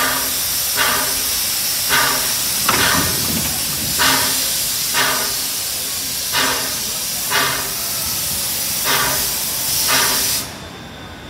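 Steam locomotive exhausting slowly, about one chuff a second, under a loud continuous hiss of steam blowing from its open cylinder cocks. The hiss cuts off suddenly near the end as the cocks are closed.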